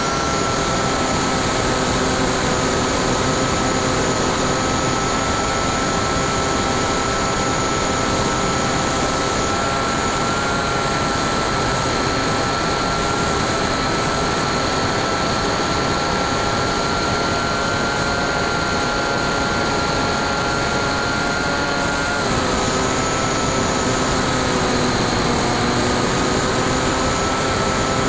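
Electric brushless outrunner motor of a Bixler 2 RC plane spinning its 9x6 propeller in flight, heard from the onboard camera: a steady whine over wind rush. The pitch drops slightly about two-thirds of the way through.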